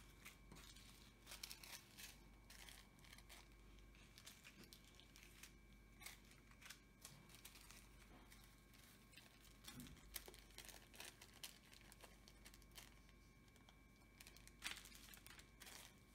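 Faint, irregular crinkling of small zip-lock plastic bags of diamond painting drills being handled and sorted.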